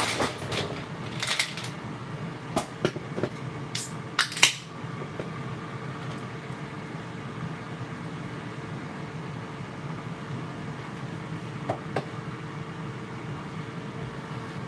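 A few clinks and knocks of plates and cutlery in the first four or five seconds, the loudest about four seconds in, then only a steady background hum.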